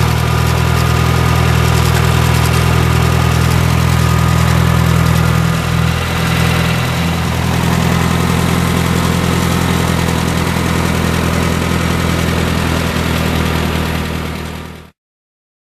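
1951 Case V-series tractor's four-cylinder engine idling steadily, dipping briefly about six seconds in. The sound cuts off suddenly near the end.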